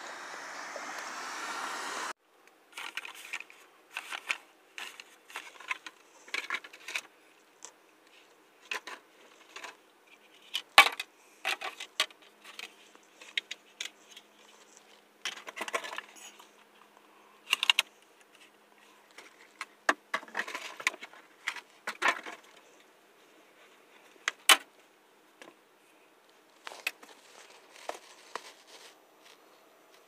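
Steady noise for about two seconds, stopping abruptly, then scattered clicks, taps and rustles at irregular intervals: a braided charging cable and its plugs being handled and knocking against the car's interior.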